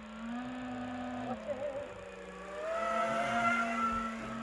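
FPV racing quadcopter's brushless motors and propellers whining in flight, the pitch sliding up and down as the throttle changes and getting louder for a second or so near the end.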